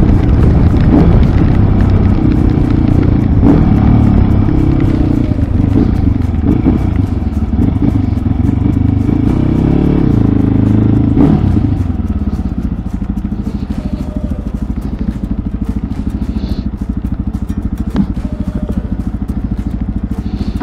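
Mondial RX3i Evo's 250 cc single-cylinder engine running under way, its pitch rising and falling with the throttle. About twelve seconds in it drops to a quieter, steady idle as the bike stops.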